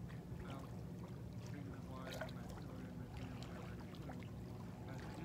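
Small waves lapping on a sandy lakeshore, over a low steady hum, with faint distant voices.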